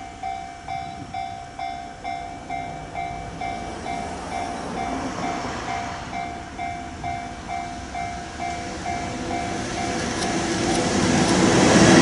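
Level crossing warning bell dinging steadily about twice a second, while the rumble of an approaching freight train hauled by an EF64 electric locomotive grows louder from about halfway. The train swells to its loudest near the end as the locomotive reaches the crossing, drowning out the bell.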